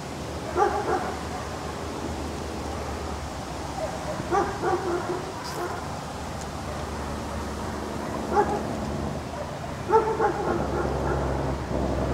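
A dog giving short yips and barks in small clusters every few seconds, over a steady low hum.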